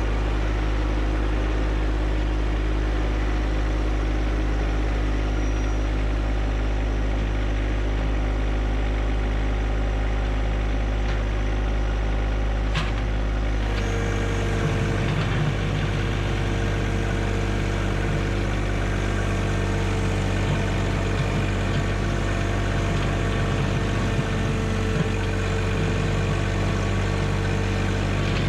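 John Deere 1025R subcompact tractor's three-cylinder diesel engine running steadily. Its note changes about halfway through as engine speed or load shifts, with a single sharp click just before.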